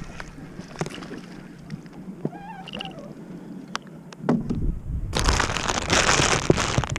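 Water sloshing and splashing around a small boat, loudest and densest in the last couple of seconds, after a stretch of light clicks and knocks. A short wavering chirp-like call sounds briefly around the middle.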